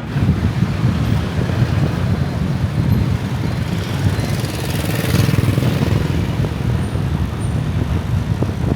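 Road vehicle running on a highway: a steady low rumble of engine and road noise, with a hiss that swells and fades about five seconds in as another vehicle passes.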